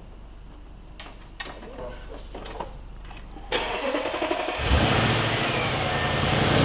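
A few sharp clicks, then the 2014 Audi RS7's twin-turbo V8 is cranked for about a second and fires up about four and a half seconds in, settling into a steady run.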